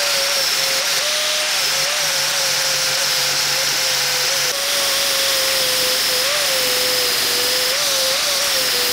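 Angle grinder with a sanding flap disc grinding steel, a steady grinding hiss over the motor's whine, which dips briefly in pitch a few times. The disc is cleaning up an old weld on a cleaver's blade-to-tang joint.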